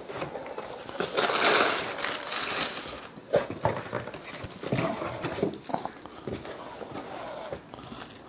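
Crumpled brown packing paper rustling and cardboard box flaps being handled while a book is pulled out of the box, loudest about a second in, then lighter rustles and small knocks.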